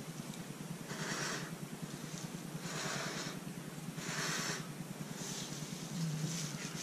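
A person blowing short puffs of breath onto wet acrylic pour paint to push it across the canvas: about five airy puffs, each under a second, over a steady low hum.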